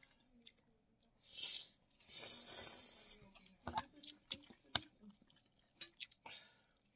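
Close-up mouth sounds of someone eating hot instant noodles. A short breathy slurp comes just over a second in and a louder one lasting about a second follows at two seconds, then come wet chewing smacks and sharp clicks.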